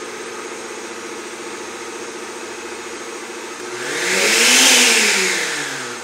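Oster blender's electric motor running steadily; about four seconds in it speeds up to a louder, higher whine, then winds back down near the end. With new bushings, the armature no longer rubs against the field.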